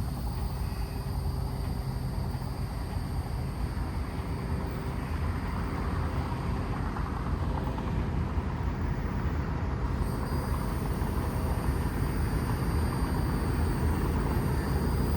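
Diesel-electric road-switcher locomotive (a GP9U) running under power with its train, a steady low rumble that grows slightly louder toward the end.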